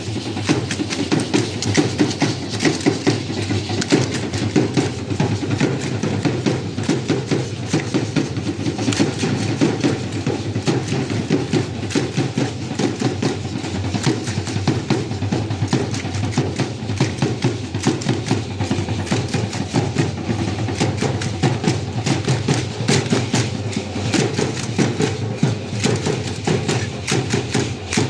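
Danza guayulera percussion: a drum beating a fast, steady rhythm, with dense sharp wooden clacks over it.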